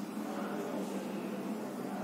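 Room tone: a steady low hiss with a faint hum and no distinct events.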